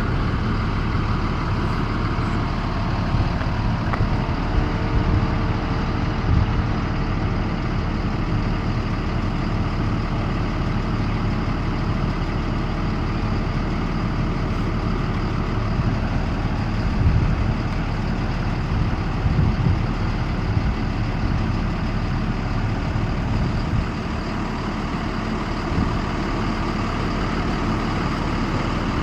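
A school bus engine idling steadily.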